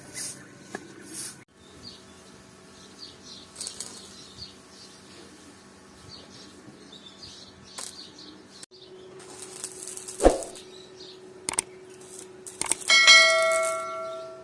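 Birds chirping, with a sharp knock about ten seconds in. Near the end a piece of metal is struck and rings for about a second and a half.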